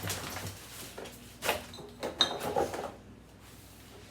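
Containers and dishes being handled while a refrigerator is cleaned out: a few knocks and a short clink about halfway through.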